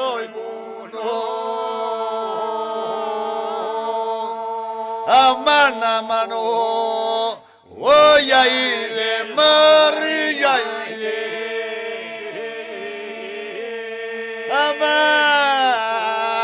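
Group of men and women singing Epirote polyphonic song: several voices hold a steady drone while long, wavering sung phrases move above it. The drone keeps going through short breaks between phrases, with one brief drop about halfway through.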